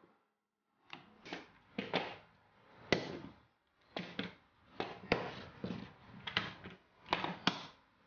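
Plastic quick-release bar clamps being released and set down on a wooden workbench: a quick, irregular run of sharp clacks, clicks and rattles, starting about a second in.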